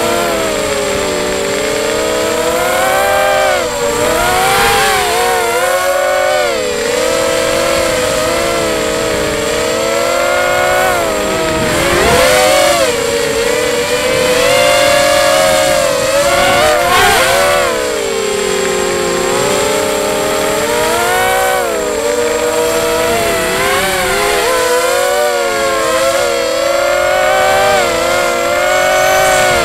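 Brushless motors and propellers of a QAV250 FPV quadcopter running on a 4S battery, heard through its onboard camera. A loud buzzing whine rises and falls constantly in pitch as the throttle changes through the flight.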